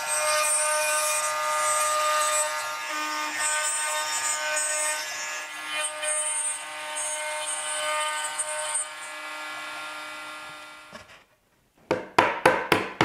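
Stepcraft M1000 CNC router's spindle running with a steady high whine as a small spiral bit mills joinery pegs into the end of a wooden board, fading out about eleven seconds in. Near the end, a mallet strikes several quick taps, knocking the cut joint together.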